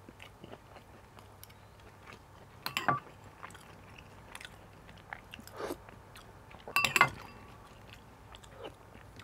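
Close-miked chewing of a mouthful of rice and fried pork, with soft wet mouth clicks. Twice, about three seconds in and again near seven seconds, a short louder clink and scrape of a metal spoon on a ceramic plate.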